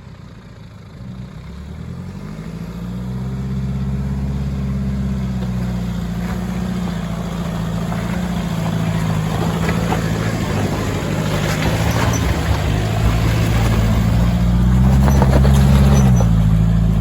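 Four-wheel-drive vehicle's engine working hard up a steep, slippery rocky climb, growing louder as it comes closer, with tyres scrabbling and spinning on loose rock. The revs rise and drop again near the end.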